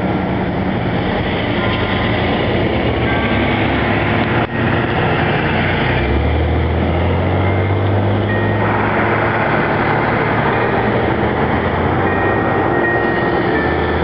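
Church bell chimes sounding short, scattered notes, half buried under a loud steady rumbling noise that gains a deeper hum about six to nine seconds in.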